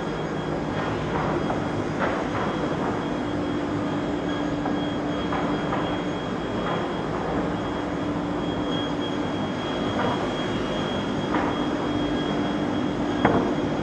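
Perun MSP-1550 Skat single-arbor multi-rip circular saw, with a 22 kW motor, running steadily as it rips thick plywood into strips: a constant drone with a low hum and a high whine. A few sharp knocks come through it, the loudest near the end.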